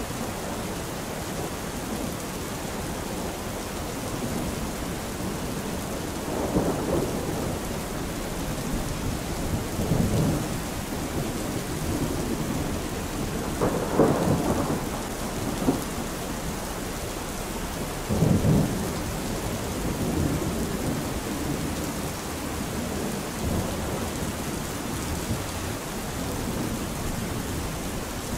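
Steady rain with low rumbles of thunder swelling every few seconds.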